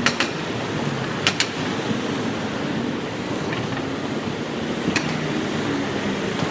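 Night-time city street traffic: cars and a taxi driving past, a steady rush of engines and tyres, with a few short sharp clicks.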